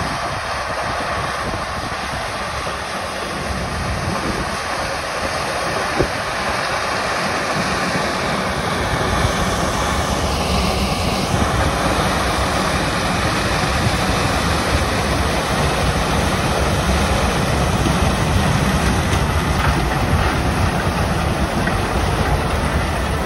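Claas Lexion 740 combine harvester running as it harvests maize with its corn header, a steady machine noise that grows louder as it draws near.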